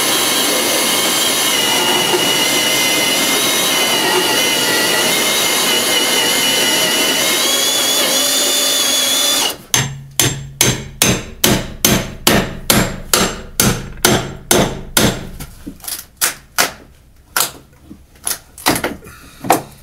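Milwaukee Fuel right-angle drill (Super Hawg) running under load, driving a hole saw through wood, with a steady whine that rises slightly before it cuts off about nine and a half seconds in. Then comes a rapid series of hammer blows on a chisel, about three a second, growing slower and more uneven near the end.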